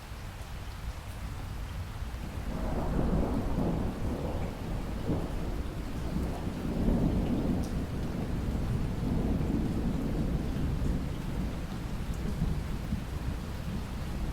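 Rolling thunder over steady rain: a deep rumble swells up a couple of seconds in, surges again in the middle, and slowly dies away toward the end while the rain keeps falling.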